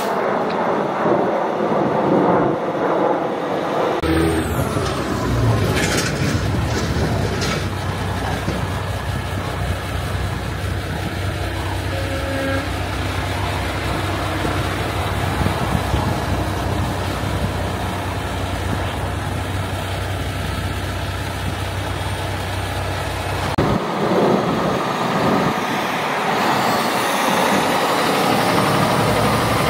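Semi-truck diesel engines running as the big rigs drive slowly by, with a steady low engine drone through the middle. A few sharp sounds come a few seconds in, and a rising whine near the end.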